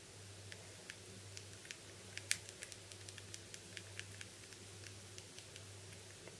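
Light clicks of the Nokia C3-01's number keys pressed over and over, about four a second, with one louder click a little over two seconds in; the clicking stops about a second before the end.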